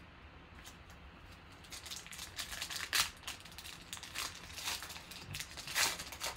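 The foil wrapper of a trading-card pack crinkling and tearing as it is ripped open by hand, starting about two seconds in. It is loudest about halfway through and again near the end, as the wrapper is pulled off the cards.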